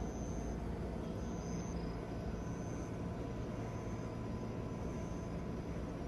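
Steady low rumble from a stopped Keikyu Main Line electric train standing on the line, with a thin faint hum and short, faint high chirps repeating about once a second.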